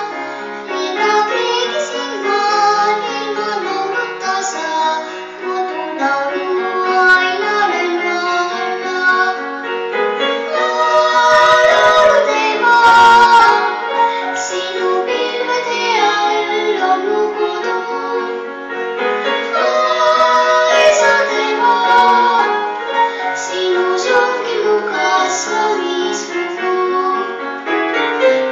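A young girl singing a solo song into a microphone with piano accompaniment, amplified over a hall's loudspeakers, with held and gliding notes.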